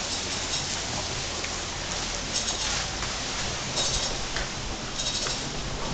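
Water pouring and splashing off a turning wooden water wheel, a steady rushing noise, with a few faint knocks.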